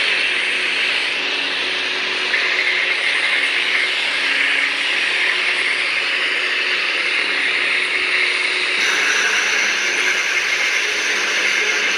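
Several ignited lightsabers' sound boards humming together: a steady, dense hum and hiss that shifts in character in steps about two seconds and again about nine seconds in.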